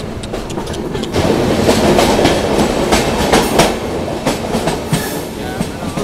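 Passenger train coaches rolling along the track, heard from an open door of a moving coach: a steady rumble with wheels clicking over the rail joints, getting louder about a second in.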